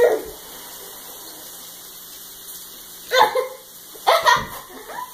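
Short non-speech vocal sounds from people reacting to the taste of a jelly bean. A brief falling grunt comes at the start, then two clusters of short laugh-like bursts about three and four seconds in.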